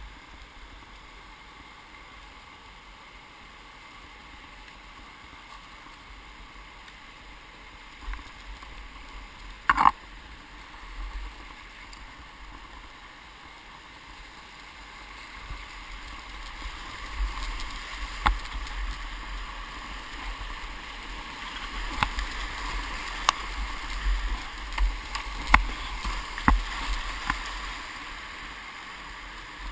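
Rushing whitewater heard from a kayak running a rapid, a steady rush that grows louder through the second half as the boat moves into rougher water. Scattered sharp knocks and splashes from the paddle and the water striking the boat come through, several close together near the end.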